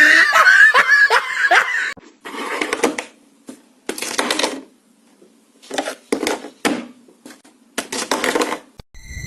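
A person laughing: a loud burst at first, then several shorter breathy bouts of laughter with pauses between them.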